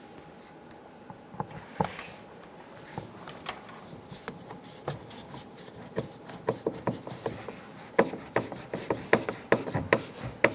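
A Phillips screwdriver driving the center screw into a truck's plastic door trim panel: a string of short clicks and scrapes, sparse at first and coming quicker and louder in the second half.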